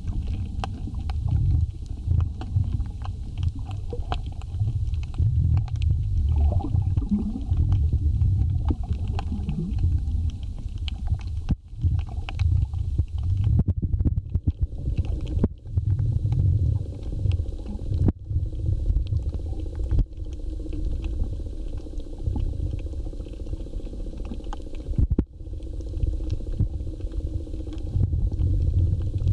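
Muffled underwater sound picked up through a camera's waterproof housing: a low rumble of moving water with scattered faint clicks and crackles, cutting out briefly a few times.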